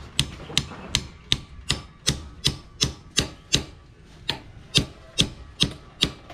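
Claw hammer tapping on a motorcycle's side-stand mount, metal on metal. Quick, evenly spaced blows come about three a second, with one short pause about four seconds in.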